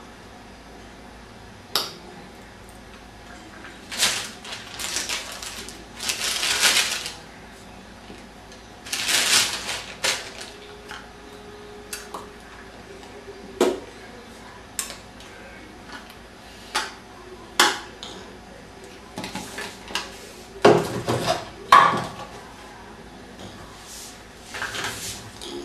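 Handling a wristwatch and its small box while unpacking it: scattered sharp clicks and light clinks, bursts of rustling packaging, and a couple of heavier knocks near the end.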